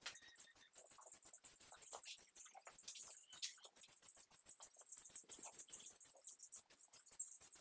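Aerosol spray paint can hissing in short bursts as a first coat is sprayed onto small metal pedal tractor parts, with scattered small clicks. A quick run of rattling pulses comes about five seconds in.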